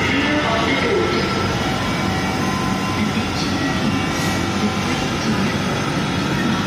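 Dhaka MRT Line 6 electric train standing at the platform with its doors shut, giving a steady hum and rumble amid platform noise.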